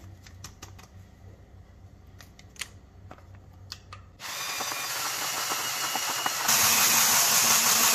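A few light clicks and knocks, then about four seconds in an electric hand blender with a whisk attachment starts whirring in flour and egg batter. It runs steadily and gets louder about two seconds later, as if switched to a higher speed.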